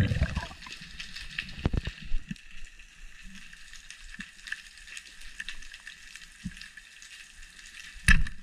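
Underwater background recorded on a diver's camera: a steady fine crackle, with a few dull low knocks from handling the gear, the loudest one near the end.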